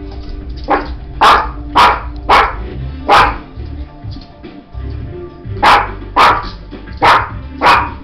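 Small dog barking sharply, nine barks in two runs: five in quick succession over the first few seconds, then a pause, then four more. Agitated barking by a dog freaking out over an object on the floor, with television audio running underneath.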